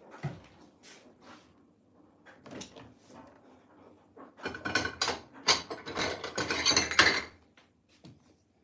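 Kitchen handling sounds: a few light knocks, then about three seconds of loud rattling and scraping, like things being moved about in a drawer or cupboard.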